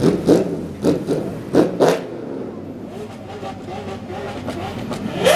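Lamborghini supercars with loud aftermarket exhausts being revved: several sharp throttle blips in the first two seconds, then engines running lower and steadier, and a rising rev near the end.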